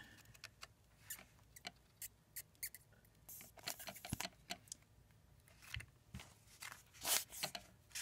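Faint, scattered clicks, taps and scrapes of a desoldering iron's tip being worked on a solder joint on a MagSafe charger's circuit board while the board is handled. There is one louder brush of noise about seven seconds in.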